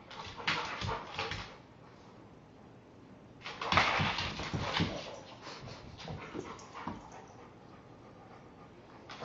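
Two dogs play-fighting, with short barks, yips and whines in bursts: one just after the start, a louder one about three and a half seconds in, and a few smaller sounds after that.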